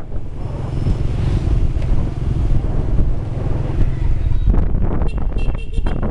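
Wind rumbling on a phone microphone riding on a moving motorbike, mixed with the motorbike's engine and the traffic around it. About four and a half seconds in, the street noise turns busier and more clattery, with a quick run of high beeps about a second before the end.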